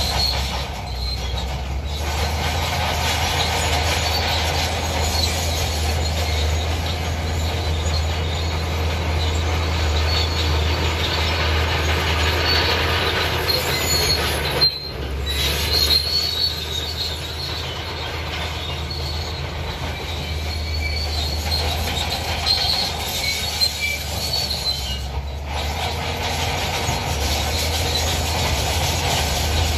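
Crawler bulldozer working rock fill: its engine runs with a steady low hum while its steel tracks squeal and clank.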